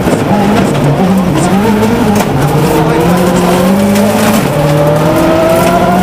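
Ford Focus WRC's turbocharged four-cylinder engine heard from inside the cabin, driven hard, with tyre and road noise from the loose stage surface underneath. The revs climb from about halfway through and hold high.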